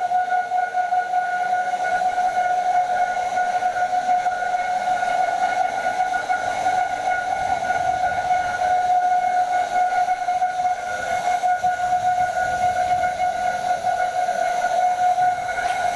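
Kreuzmayr vacuum cooking kettle running, its pump and stirrer machinery giving a steady high-pitched whistling whine over a hiss.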